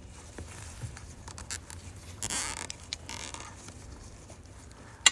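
A plastic cable tie being pulled tight, its teeth ratcheting through the lock in a short raspy zip about two seconds in, then a weaker one just after, amid light handling of the wiring. A single sharp click at the very end is the loudest sound.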